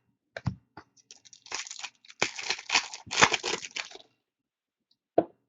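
Card pack wrapper torn open and crinkled by hand, about three seconds of dense crackling, after a few light clicks as the pack is handled. A single tap comes near the end.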